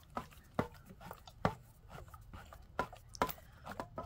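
Handheld OXO can opener being cranked around the rim of a can, giving a string of irregular sharp clicks as the knob is turned.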